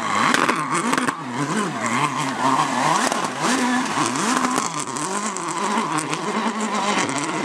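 Peugeot 307 WRC rally car's engine revving hard through a slide on a muddy stage. The pitch rises and falls over and over with the throttle and gear changes.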